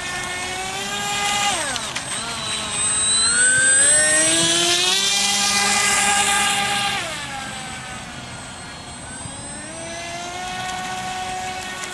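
Small electric motor and air propeller of a radio-controlled propeller boat whining, the pitch dropping and rising again twice as the throttle changes. It is loudest in the middle as the boat runs close by.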